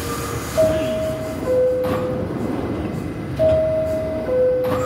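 New York City subway car's door chime sounding twice, each time a falling two-note ding-dong, over the steady rumble of the train at a station platform: the signal that the doors are about to close.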